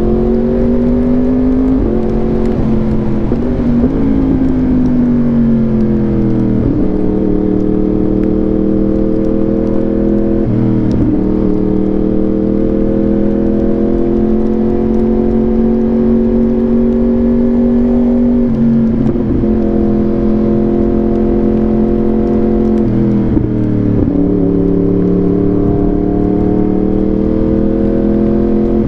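Yamaha R1 inline-four engine through an SC-Project exhaust, pulling under riding load and upshifting with its quickshifter. Each shift is a sudden drop in pitch followed by a steady climb, several times over.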